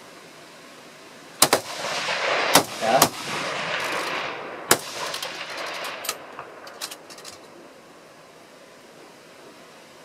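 A ragged series of rifle shots, about nine in all, with the three loudest in the first few seconds. They are followed by a long rolling echo that dies away.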